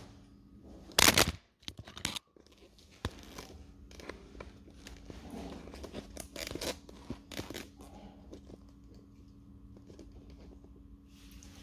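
Hands working on a bicycle crankset and its tools: a loud short rasping burst about a second in, a few sharp clicks, then softer rustling and scraping.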